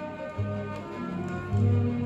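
Instrumental music playing from a vinyl LP on a turntable: held notes over a bass line that moves to new notes twice, with faint scattered clicks.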